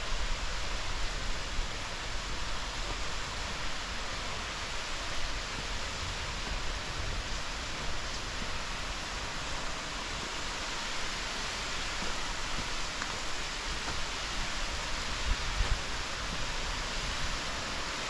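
Steady hiss of rushing river water flowing toward a waterfall, with a few low bumps near the end.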